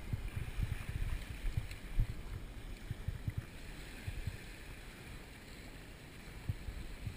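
Wind buffeting the microphone in irregular low gusts, over a faint wash of shallow sea water at the shoreline.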